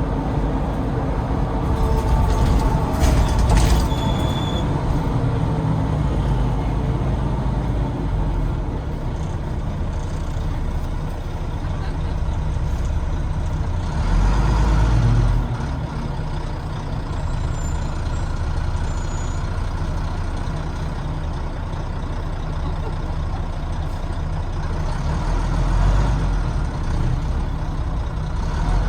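Volvo D9B six-cylinder diesel of a Volvo B9TL double-decker bus running on the move, a steady low rumble heard from inside the bus, swelling louder around halfway through and again near the end. About three seconds in there is a short burst of hissing noise, which may be air released from the brakes.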